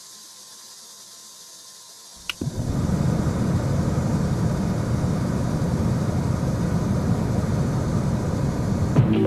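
A faint hiss, then a click about two seconds in and a steady low machine rumble that starts abruptly and runs on evenly.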